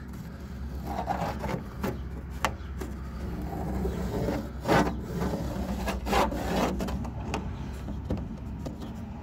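A marker scratching and rubbing along the underside of a composite decking board as the wheel-well outline is traced, in irregular strokes with a few louder scrapes in the middle.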